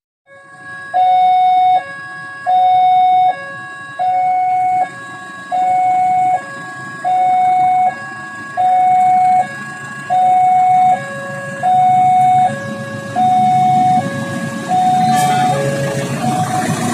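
Level-crossing warning alarm sounding: an electronic signal alternating a louder high tone and a lower tone, about one high-low cycle every second and a half. Near the end the rumble of an approaching diesel locomotive rises underneath it.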